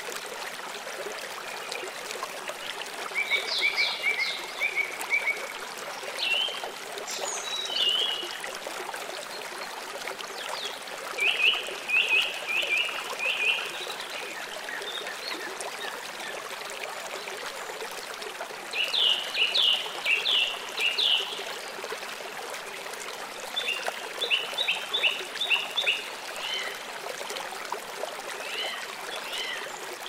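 Nature ambience track of a steady running stream, with bursts of quick chirping calls every few seconds.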